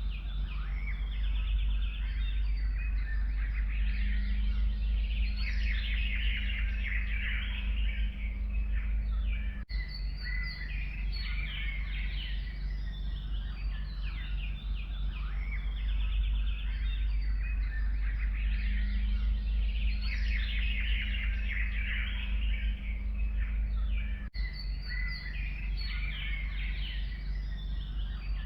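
Dense chorus of forest songbirds, many chirps and trills overlapping, over a steady low rumble. The sound breaks off for an instant twice, about ten seconds in and again near the end.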